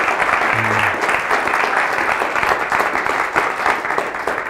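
Audience applauding, a dense, steady clapping that holds at full strength.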